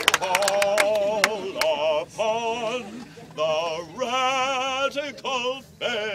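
A man singing long held notes in an operatic style with a wide vibrato. Scattered handclaps die away in the first second or so.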